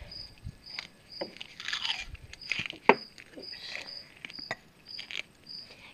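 Duct tape being pulled off the roll and wrapped around a PVC pipe: crackling and crinkling with a few sharp clicks.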